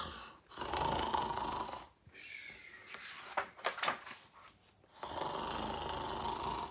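A man imitating snoring: two long, drawn-out snores, one starting about half a second in and one about five seconds in, with softer breathy sounds and a few clicks between them.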